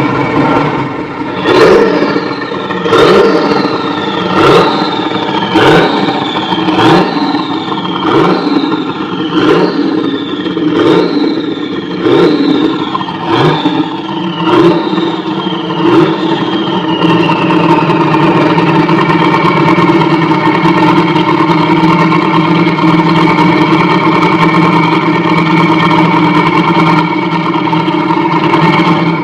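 Porsche 935 Kremer K3's twin-turbocharged 3.2-litre flat-six race engine revved in quick blips, about one every second and a quarter, each rising sharply and falling back. From about halfway it is held at a steady rpm, and the sound cuts off suddenly at the end.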